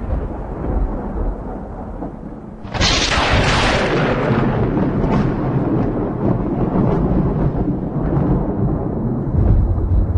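Thunder sound effect: a low rumble, then a sudden sharp thunderclap about three seconds in that rolls on as a long rumble, swelling again near the end.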